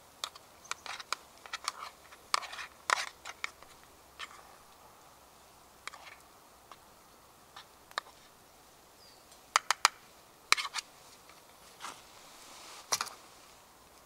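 Irregular sharp clicks and taps, several in quick bursts, with quieter gaps between.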